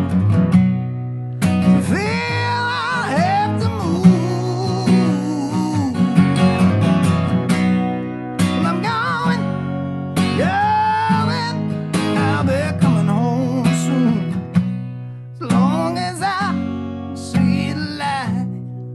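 Acoustic guitar being strummed, with a voice singing a melody in phrases broken by short pauses.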